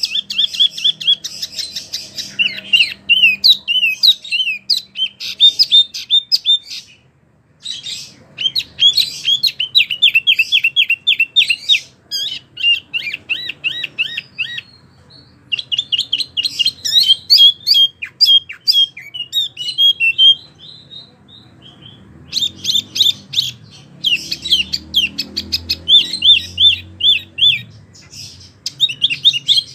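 A wambi mini songbird singing energetically in long, fast runs of high, repeated chirping notes, broken by brief pauses.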